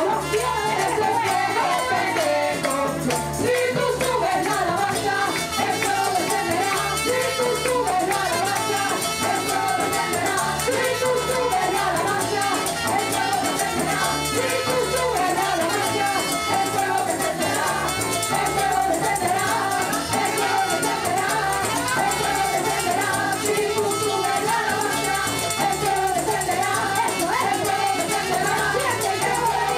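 Live Latin-style worship music: several women singing together over a band with timbales, electric guitar and trumpet, with a rattling percussion part running through.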